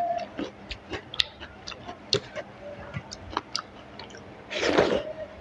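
Close-miked chewing of rice and curry: many short wet clicks and mouth smacks, with a louder breathy rush lasting about half a second near the end.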